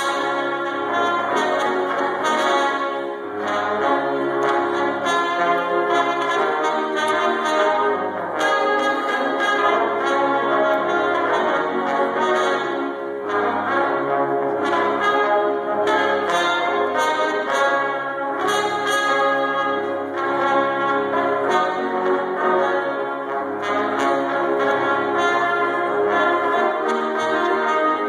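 A brass trio of trumpets playing a piece together, several instruments sounding held notes at once without a break.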